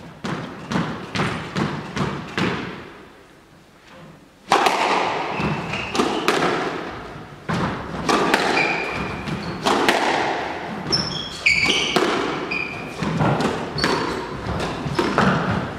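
Squash rally: the ball cracks off rackets and thuds against the court walls, each hit echoing in the enclosed court, with short squeaks of shoes on the wooden floor. A few lighter knocks come first, then a lull, and the rally starts with a loud hit about four and a half seconds in.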